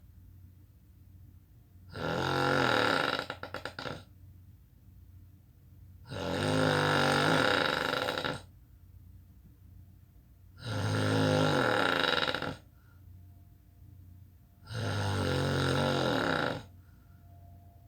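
A person snoring: four long snores about four seconds apart, each lasting about two seconds, the first ending in a fluttering rattle.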